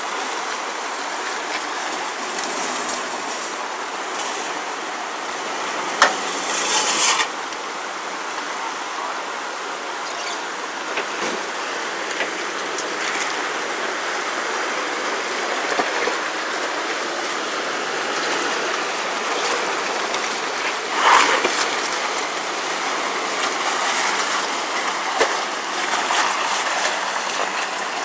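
Creek water rushing and splashing around a Land Rover Discovery 2 as it crawls through a rocky creek crossing, with its V8 engine running under the water noise. Brief louder bursts come about six seconds in and again around twenty-one seconds in.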